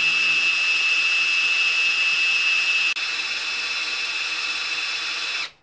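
Cordless drill spinning a Ford V8's oil pump through the distributor hole with a priming tool: a steady motor whine that drops a little in level about three seconds in and stops just before the end. The pump is priming the engine, pushing oil to the bearings before a first start, with oil pressure already showing.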